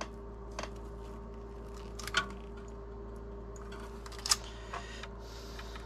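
A few light plastic clicks and taps as a DIP IC socket's pins are worked into the holes of a circuit board, the sharpest about four seconds in, over a steady low hum.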